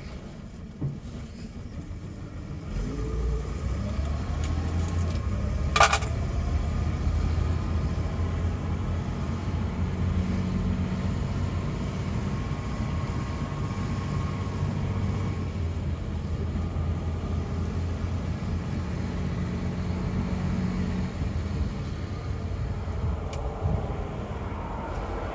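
1964 Mercedes-Benz 220 SB's straight-six engine heard from inside the cabin, pulling up through the revs a few seconds in and then running steadily as the car drives along. A single sharp click sounds about six seconds in.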